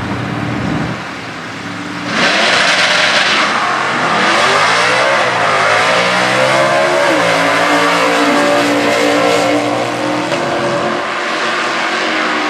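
Stock Eliminator drag racing car engine, sitting at a steady rumble, then going to full throttle about two seconds in as the car launches. Its pitch climbs and drops back at the gear changes as it accelerates away.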